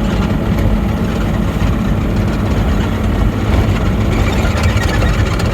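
Mini excavator's diesel engine running steadily with a low hum as the machine travels on its tracks, with light rattling.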